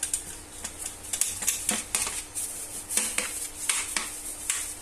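Aluminium baking tray being greased by hand, giving irregular light scraping and clicking against the thin metal as the tray is tilted and handled. A faint steady hum runs underneath.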